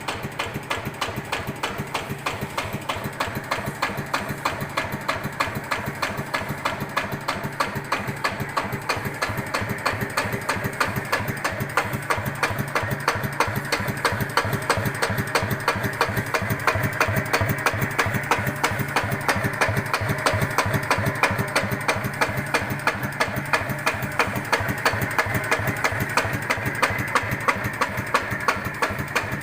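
Yanmar TF 105 L single-cylinder diesel engine idling very slowly without stalling, a steady beat of firing strokes with a strange 'tok-tok-tok' knock that the owner is unsure is normal.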